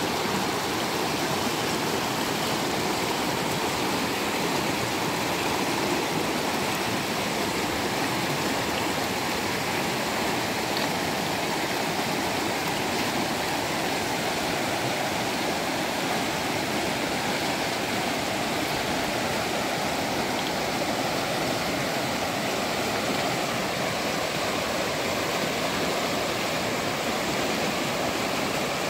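River water rushing steadily, an even, unbroken roar of flowing water.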